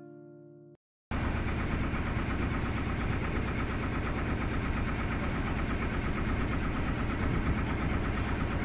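Tour boat's engine running steadily, heard on board, starting suddenly about a second in after a short strummed acoustic guitar passage ends.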